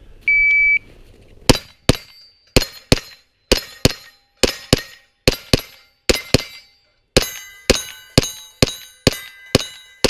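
An electronic shot-timer beep starts the string. Rapid rifle shots follow, with the steel plates ringing as they are hit: first six quick pairs of reports, then a faster run of about eight shots with the steel ringing on.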